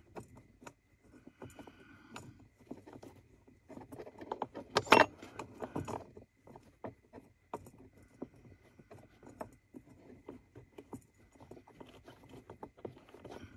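Allen wrench turning a bolt into the gas pedal spacer's bracket: irregular small metallic clicks and scrapes, with a louder bout of clatter about five seconds in. The bolt turns stiffly, its threads thickened by the bracket's black coating.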